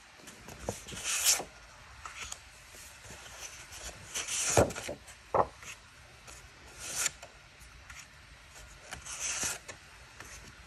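Sheets of thick patterned scrapbook paper turned over and slid across one another by hand: a paper swish about every two to three seconds, four in all, with a few light ticks between them.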